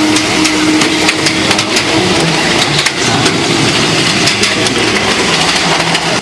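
Engine of a miniature ride-on diesel-style locomotive running steadily as it hauls loaded passenger cars, with a steady low hum and frequent sharp clicks from the wheels on the small-gauge track.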